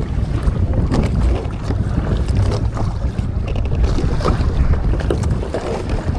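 Wind buffeting the microphone in a steady low rumble aboard a Hobie sail kayak under way, with scattered small splashes and knocks of water against the hull.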